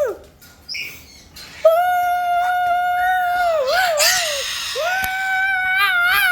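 A bird giving long, loud, steady-pitched calls: one held for about two seconds that breaks into a wavering warble, then another starting near the end that wavers in pitch.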